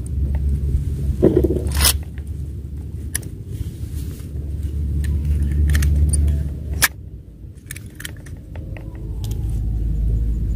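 Wind buffeting the microphone as a low rumble that swells and fades, with scattered clicks and a brief rustle from handling a telescopic fishing rod, small spinning reel and lure.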